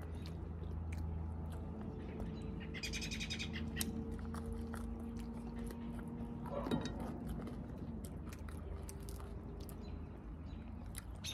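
Bird calls over a steady low hum, with a short rapid high trill about three seconds in and faint scattered clicks.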